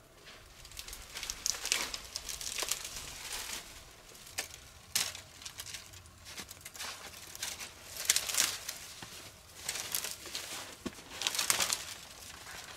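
Irregular crinkling and rustling, with sharp crackles coming in uneven clusters.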